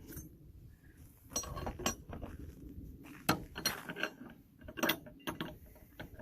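Metal hardware and tools being handled: about half a dozen sharp metallic clinks and knocks at irregular intervals, each with a short ring.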